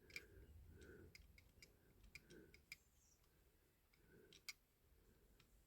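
Near silence with faint, scattered small clicks and a few soft brief rubbing sounds, from hard wax being worked onto a diecast model car with a cotton bud.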